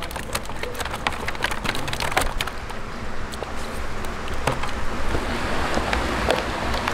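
Water splashing and trickling, with many sharp wet spatters in the first couple of seconds that thin out later, over a steady low rumble.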